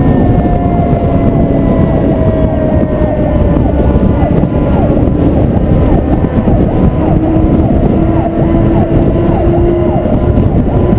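Wind rushing over a camera mounted on the side of a moving Pierce fire truck, heard over the truck's engine and road noise. A siren cycles rapidly up and down faintly underneath.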